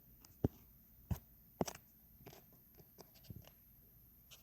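A few short, sharp clicks and taps, scattered unevenly, between stretches of near quiet.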